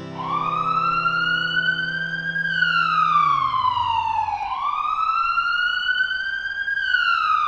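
Ambulance siren wailing: a slow rise and fall in pitch, repeated twice.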